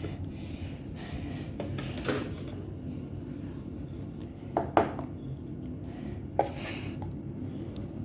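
Washing machine running with a steady low hum, broken by a few sharp clinks and knocks, about one every couple of seconds.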